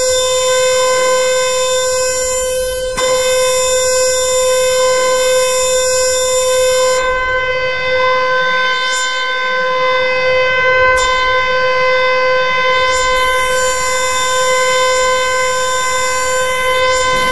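Black MIDI noise piece played through the Arachno SoundFont: tens of thousands of notes a second blur into a dense wall of sound. Several steady held tones run under sweeps that glide up and down the keyboard every few seconds.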